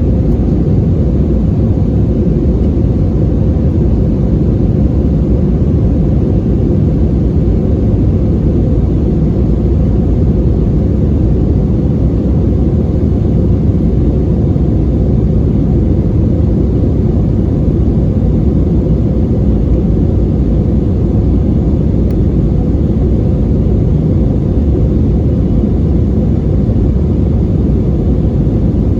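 Cabin noise inside an Airbus A320-232 with IAE V2500 engines: a loud, steady low rumble of engines and airflow, unchanging throughout.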